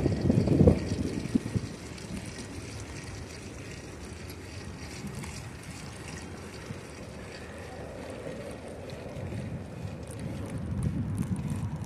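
Wind rushing over the microphone of a moving bicycle's camera: loud low buffeting in the first second or so, then a steadier, quieter rush.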